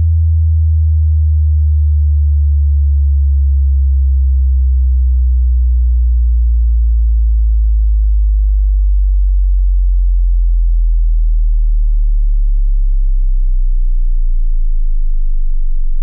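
Deep subwoofer sine test tone, loud and steady, stepping lower in pitch about every four seconds.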